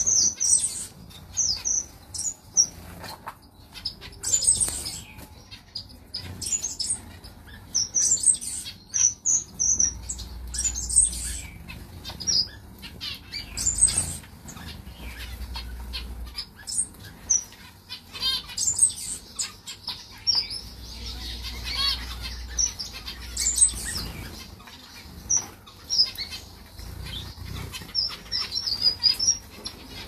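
A flock of small cage finches, zebra finches among them, chirping with many short, high calls, mixed with the flutter of wings as birds fly about.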